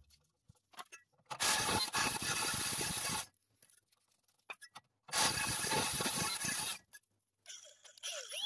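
WD-40 aerosol can spraying in two long hissing bursts of about one and a half to two seconds each, with small clicks of the can being handled between them.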